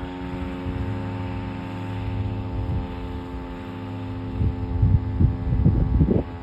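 Federal Signal STH-10A single-tone outdoor warning siren sounding a steady, unchanging tone during its monthly test. Wind gusts hit the microphone in the second half.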